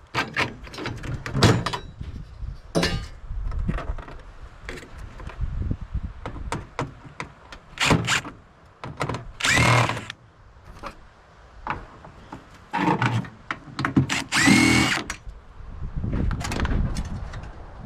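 Power drill-driver run in short bursts, each spinning up with a rising whine, backing screws out of a microwave's casing, with knocks and clatter of parts between bursts.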